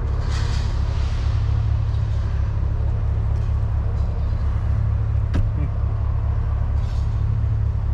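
Steady low rumble of a truck's engine running, with one sharp click about five seconds in.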